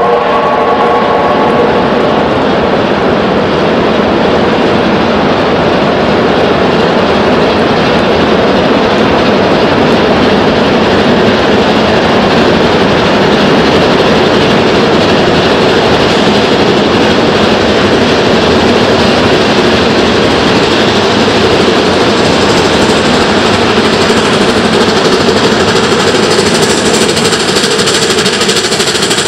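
NZR Ka class 4-8-4 steam locomotive 942 working hard as it approaches, its exhaust loud and continuous. The last of its whistle fades out in the first couple of seconds, and a high hiss grows near the end as the engine draws close.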